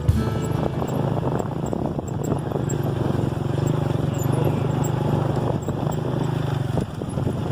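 Steady engine running, with a low drone that holds even and dips briefly near the end.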